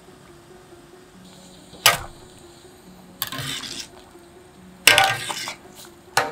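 A metal ladle clinks against a stainless steel pot and water splashes as boiled shrimp are scooped out: a sharp clink about two seconds in, two short splashy bursts, and another clink near the end.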